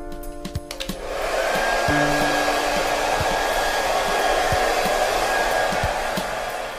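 Hand-held hair dryer switched on about a second in and blowing steadily, with a faint steady high whine over the rush of air.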